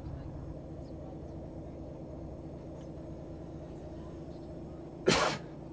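Volvo FH500's 13-litre six-cylinder diesel idling steadily, heard from inside the cab. Near the end, a short, loud rush of noise cuts in for a fraction of a second.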